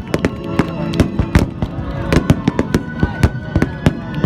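Fireworks going off in rapid succession, many sharp bangs and crackles a second, with music playing underneath.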